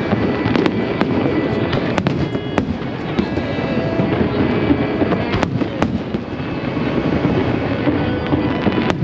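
Aerial fireworks going off continuously: a dense, rolling rumble of shell bursts with sharp cracks scattered throughout.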